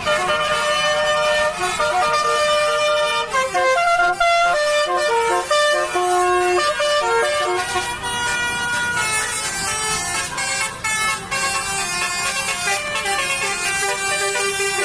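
A tour bus's basuri musical horn (telolet) playing a tune: loud held horn notes that step from pitch to pitch, one after another.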